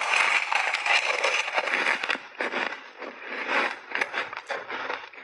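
Crunching and chewing of a big mouthful of shaved ice coated in milk powder, picked up close by a lapel microphone. The crunching is dense and continuous for about two seconds, then comes in separate crunches.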